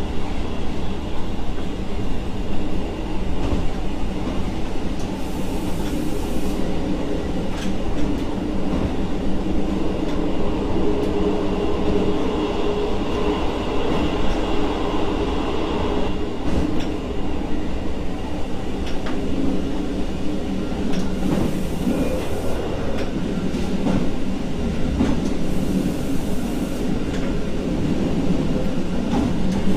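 Diesel multiple unit running along the line, heard from inside the driver's cab: a steady engine drone mixed with wheel-on-rail noise, with a few sharp clicks.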